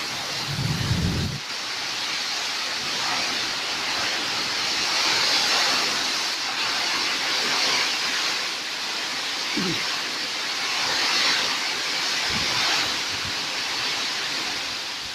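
Heavy rain pouring down in a storm, a steady, dense hiss, with a brief low rumble about a second in.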